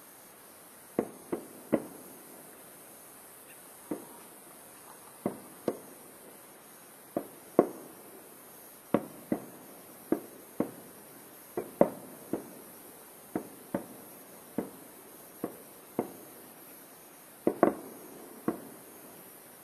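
Aerial fireworks shells bursting: about two dozen sharp bangs at irregular intervals, often in quick pairs, each trailing off in a short echo.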